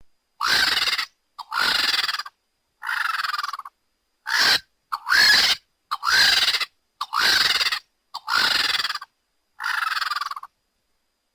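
Sound-effect calls made for Titanis walleri, an extinct terror bird: about nine loud, rough cries, each under a second long, roughly one a second, stopping about a second before the end.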